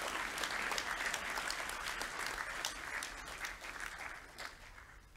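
Audience applauding, the clapping thinning out and dying away over the last two seconds.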